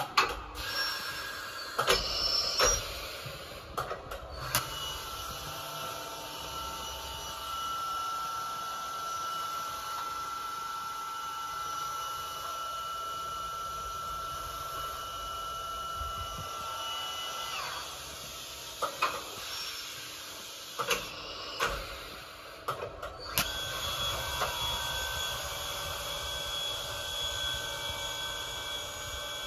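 Hartford vertical machining centre running under power, giving off a steady machine whine. The whine stops about 18 seconds in and starts again at a different pitch a few seconds later, with scattered clicks and knocks near the start and again just before the whine returns.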